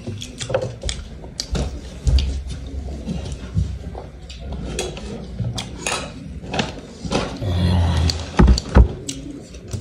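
Close-up eating sounds of roast chicken eaten with the fingers: chewing and mouth clicks scattered throughout, with two thumps near the end.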